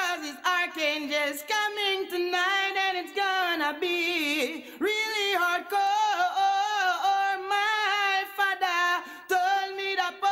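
Dancehall vocal singing a melodic, pitch-bending line in a fairly high voice.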